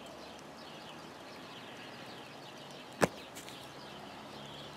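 One sharp click about three seconds in, over a faint background of small high chirps like distant birds.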